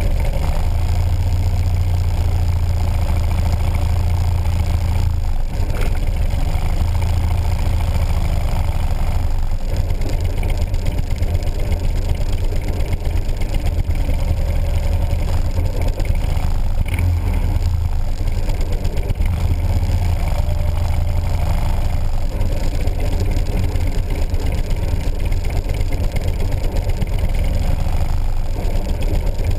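Motorcycle engine running steadily at low speed, heard close up from a camera mounted on the bike, with a slight change in its note about five seconds in.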